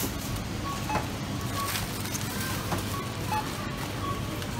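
Supermarket checkout ambience: a steady hum of the store with short high-pitched beeps from barcode scanners, about one or two a second. A plastic carrier bag rustles as groceries are packed.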